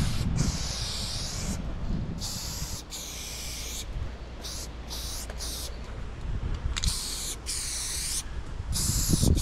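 Aerosol spray-paint can hissing in a series of short bursts, each half a second to a second long with brief gaps, as outline lines are sprayed onto a painted train panel.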